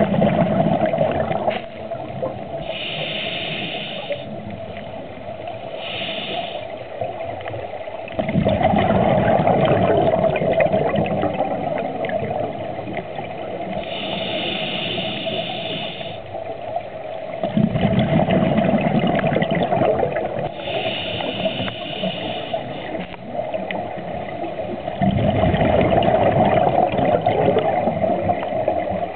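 Scuba diver breathing through a regulator underwater: a short hiss on each inhalation and a longer rush of bubbles on each exhalation, the cycle repeating about every 8 seconds.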